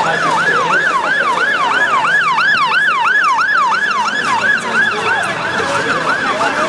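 Emergency vehicle siren on a fast yelp, its pitch sweeping up and down about three times a second, a little fainter near the end.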